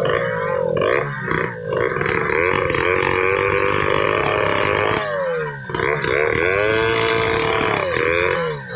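Chainsaw running under load as it cuts through hard damar laut timber, its engine pitch sagging and recovering several times as the chain bites into the wood.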